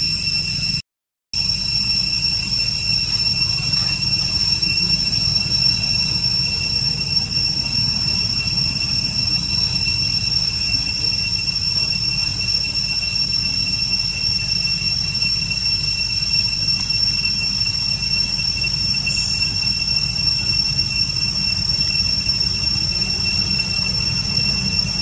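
Steady, unbroken high-pitched drone of forest insects, several constant whining tones at once, over a low rumble. The sound cuts out completely for a moment about a second in.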